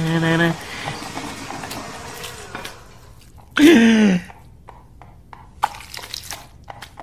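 A male voice holds a sung note that breaks off about half a second in. About three and a half seconds in comes a short vocal cry that falls in pitch, followed by scattered light clicks and crackles.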